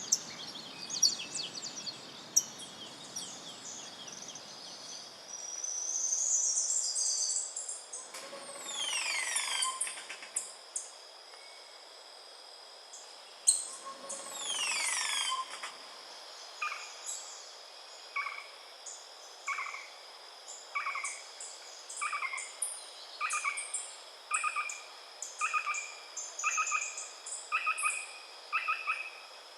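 Cloud-forest birds calling over a steady high insect drone: two long falling whistled calls about a quarter and halfway through, then a bird repeating a short note a little more than once a second, with scattered high chirps.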